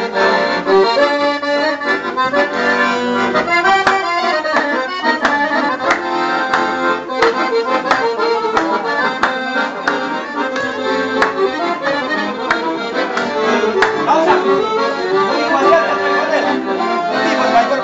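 Accordion playing a traditional tune, with frequent sharp percussive hits.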